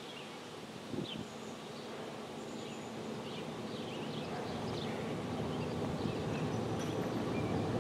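Outdoor ambience: scattered short bird or insect chirps over a low rumble that grows steadily louder.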